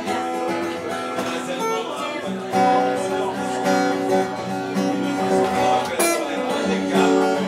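Solo acoustic guitar played fingerstyle: plucked notes and chords ringing over a bass line. There is one sharp knock about six seconds in.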